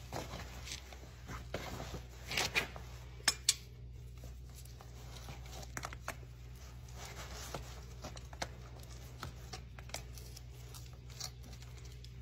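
Faint scraping and small clicks of a farrier's metal hand tool working over a shod horse hoof and its packed sole, with a few sharper clicks between about two and three and a half seconds in. A low steady hum runs underneath.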